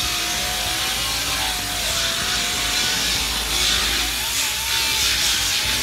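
Heavy-duty disc grinder running against the steel inner wheel well of a car, grinding off old undercoating and crud. A harsh grinding hiss sits under a motor whine that dips and rises in pitch as the disc bites.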